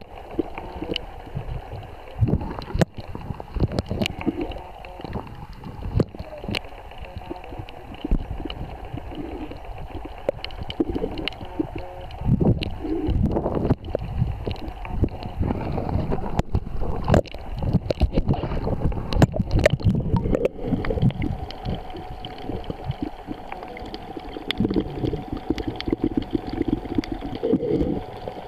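Water sloshing and gurgling over an underwater camera, with scattered sharp clicks. About two-thirds of the way through, a steady drone joins in.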